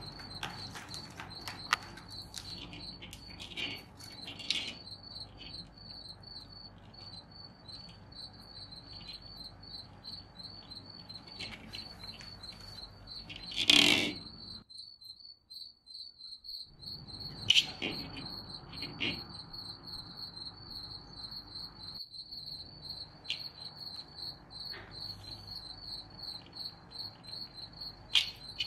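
Cricket chirping steadily, in high evenly spaced chirps several times a second. Scattered soft knocks and bumps sound over it, with one loud thump around the middle.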